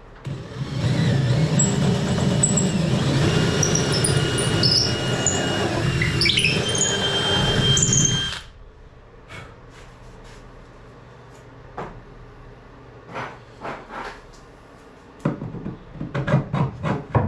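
Power drill boring through wood for about eight seconds, redirecting a carriage-bolt hole at a new angle, with high steady squealing tones from the bit as it cuts; the drill stops abruptly. Afterwards come a series of light knocks and clicks.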